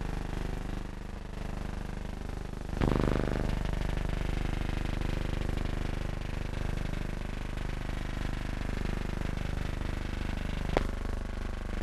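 Steady low hum and hiss of an old film soundtrack, with a thump about three seconds in and a sharp click near the end.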